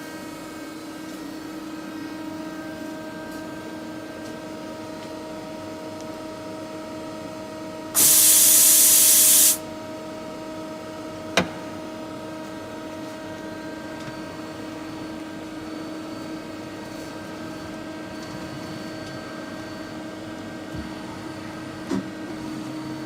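Mazak SQT-10MS CNC turning centre running, a steady hum of several held tones. About eight seconds in, a loud hiss lasts about a second and a half, and a few seconds later there is a single sharp click.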